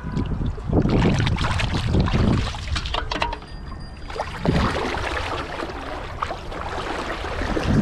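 Shallow water splashing and sloshing around a person's legs as they wade and handle a fish, in irregular bursts, loudest in the first couple of seconds.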